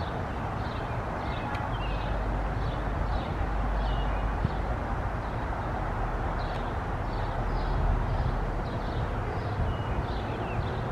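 A bird chirping over and over, short high chirps about twice a second, over a steady low rumble.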